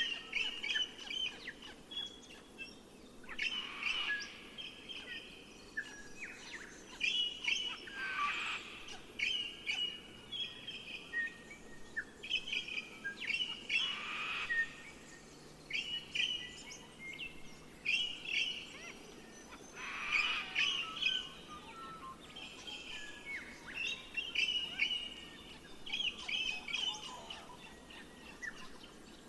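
Birds chirping and calling: many short, overlapping chirps and trills with louder bursts every few seconds, over a faint steady background hiss.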